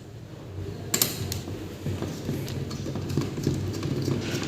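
Screwdriver undoing the screws that hold a desktop PC's processor fan and heatsink down: small metallic clicks and scrapes, with a sharper click about a second in.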